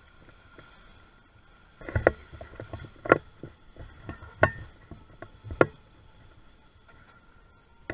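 Four heavy footsteps about a second apart, close to the microphone, with smaller clicks between them, over a faint steady high whine from the RC jet boat's motor out on the water.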